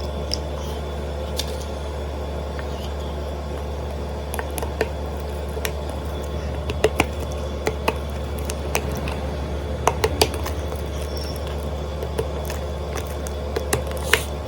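Homemade slime being mixed and squished, with scattered small sticky clicks and pops that come more often after a few seconds, over a steady low hum.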